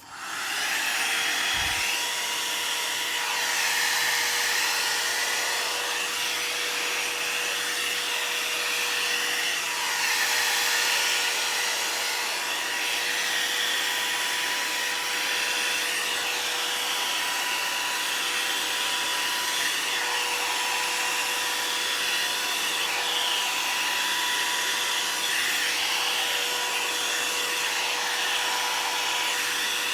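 One-step hot-air brush (blow dryer and voluminizer) switched on and running on its low setting: a steady rush of air with a constant whine from its fan motor, which spins up within the first second.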